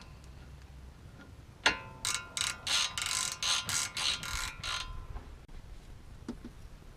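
An 18 mm ratcheting wrench clicking about ten times in a steady rhythm as it tightens the tie rod end nut, after a single metallic clink of the wrench about a second and a half in.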